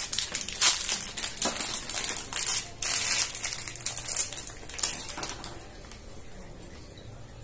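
Plastic bag of small bolts and fittings being handled, the wrapping crinkling and the metal parts clicking against each other in a quick, irregular run of crisp crackles that dies away about five and a half seconds in.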